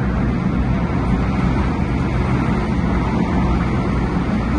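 MTR Tung Chung Line CAF electric train running on the line, a steady rumble and hum of motors and wheels on track with no change in pace.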